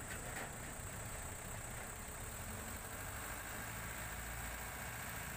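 Steady low rumble of a vehicle's engine, heard from on board as it drives along.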